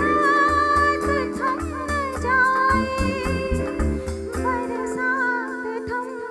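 A live band plays a Hindi film song, with a wavering melody line over sustained keyboard chords and a steady low beat. The beat drops out about four and a half seconds in, leaving the held chords and the melody.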